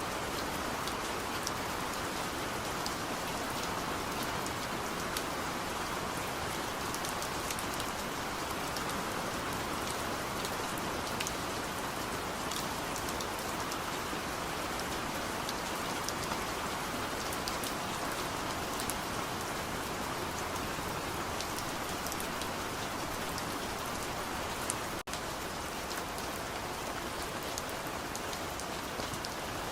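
Steady rain, an even hiss with many small drop ticks scattered through it, broken by a momentary dropout about 25 seconds in.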